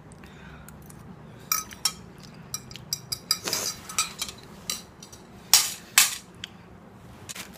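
A fork clicking lightly against a bowl of instant noodles amid the small sounds of eating. Then a run of short noisy bursts follows, the loudest two close together about five and a half seconds in.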